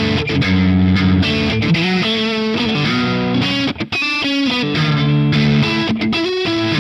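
Distorted electric guitar playing an improvised solo: held notes broken by quick runs of fast-changing notes, about four seconds in and again near the end.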